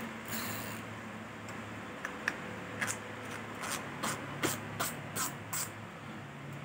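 A spinning fishing reel being handled: a run of light, evenly spaced clicks, about two or three a second, starting about three seconds in, over a steady low fan hum.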